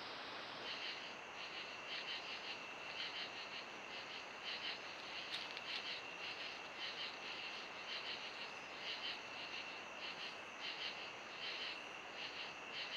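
Night insects calling: a chorus of short pulsed chirps repeating about twice a second, starting a moment in, over the trail camera's steady hiss.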